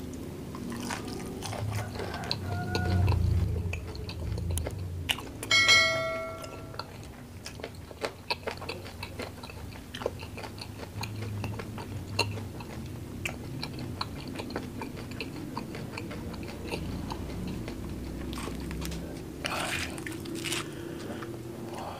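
Close-up chewing of crispy battered fried mushrooms with chili sambal: crunching bites and chewing. A brief ringing tone sounds about six seconds in. Near the end comes a short rustling scrape as a mushroom is pushed through the sambal by hand.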